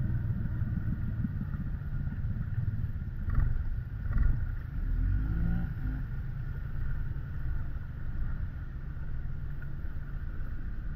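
ATV engine running at low speed while wading through deep floodwater, with water churning around the machine. Two brief knocks come near the middle.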